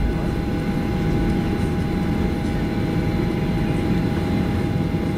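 Cabin noise inside a Boeing 737-800 taxiing on the ground, its CFM56 engines at idle: a steady low rumble with a thin, even whine over it.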